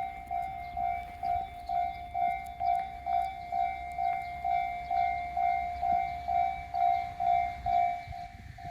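Japanese railway level-crossing warning signal ringing its repeated electronic "kan-kan" tone, about two strokes a second.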